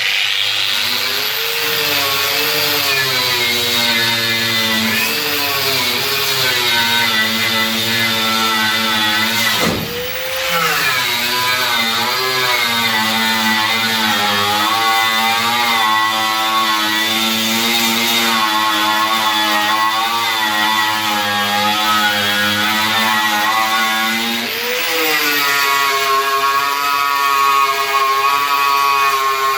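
Electric angle grinder running under load, stripping body filler from a car panel; its whine sags and recovers as it is pressed into the work, easing off briefly about ten seconds in and again near twenty-five seconds.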